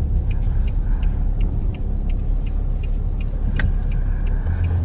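Car road noise heard from inside the cabin while driving: a steady low rumble of engine and tyres, with a light, regular ticking about three times a second.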